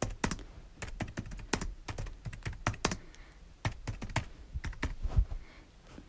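Typing on a computer keyboard: irregular runs of key clicks with a brief pause about three seconds in, thinning out near the end.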